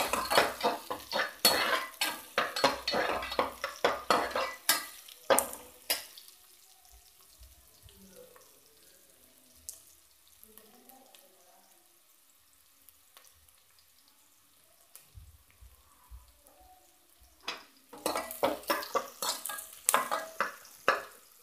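A spoon scraping and knocking against a steel pot as chopped onions are stirred in hot oil to fry, with a light sizzle. The stirring stops for about ten seconds in the middle, leaving only a faint sizzle, and starts again near the end.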